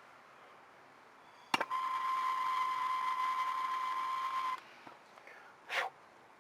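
A click, then a steady electronic beep, one unchanging tone held about three seconds before cutting off suddenly, followed near the end by a short burst of noise.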